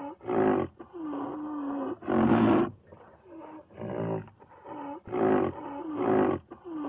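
A wild-animal roar sound effect: loud roars and growls with a long drawn-out call between them, the same sequence repeating about six seconds later.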